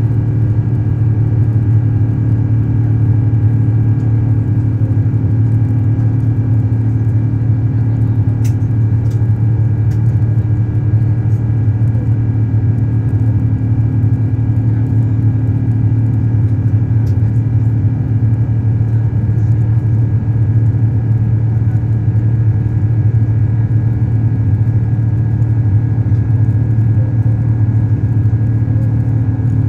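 Steady in-cabin drone of an Airbus A350-900 in climb after takeoff: a loud low hum from its Rolls-Royce Trent XWB engines and airflow, with a few faint clicks.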